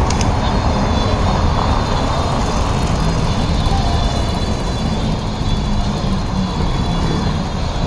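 Steady traffic noise on a busy city avenue: a constant low rumble of vehicles, with a low hum swelling about halfway through.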